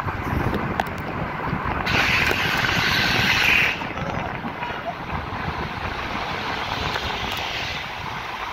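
A car rolling slowly downhill, with steady road rumble and wind noise. About two seconds in, a loud hiss comes in for nearly two seconds, then drops back.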